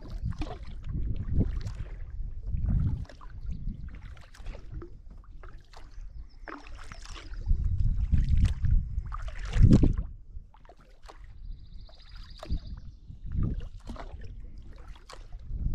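Double-bladed kayak paddle strokes: the blades dipping and splashing into calm water and dripping as they lift out, in an irregular rhythm about every second or two, over a low rumble of wind on the microphone.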